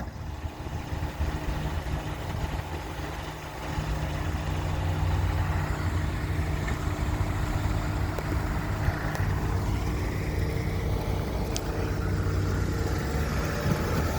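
Car engine and road noise as the vehicle drives: a steady low hum that grows louder about three and a half seconds in.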